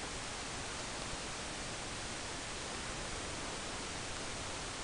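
Steady, even hiss of background room noise with no distinct sounds.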